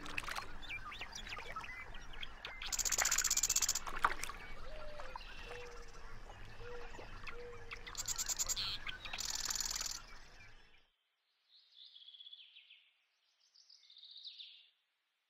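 Wild birds chirping and calling over a light steady outdoor hiss, with louder high buzzing bursts about three seconds in and again around eight to ten seconds. Just before eleven seconds the sound cuts off suddenly, leaving near quiet with two faint high bird phrases.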